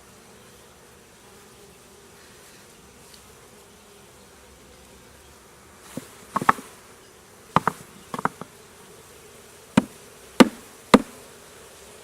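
Honeybees buzzing steadily around an open hive. About halfway in a series of sharp knocks and clacks begins, several in quick pairs, the loudest near the end.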